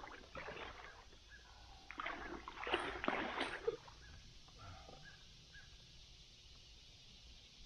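Short bursts of shallow water splashing and sloshing around a kayak: once about half a second in, then again from about two to nearly four seconds in.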